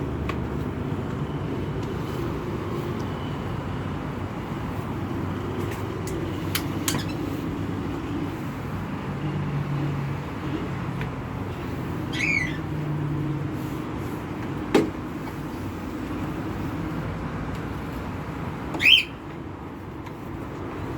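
Steady low hum of background traffic, with a single knock about fifteen seconds in and two short squawking bird calls, one about twelve seconds in and a louder one near the end.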